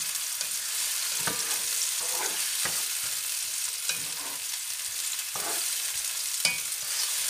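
Sliced onions sizzling steadily in hot oil in a nonstick frying pan, stirred with a spatula that scrapes and knocks against the pan about half a dozen times.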